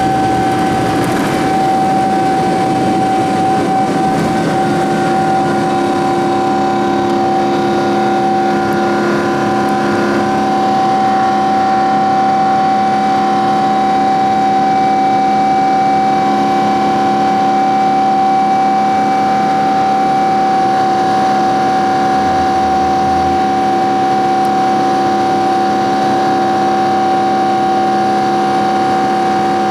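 Boeing 777-200ER turbofan engines at takeoff thrust, heard from inside the cabin: a loud, steady drone with a constant high whine over lower steady tones. The rough rumble of the takeoff roll dies away in the first couple of seconds as the aircraft lifts off and climbs.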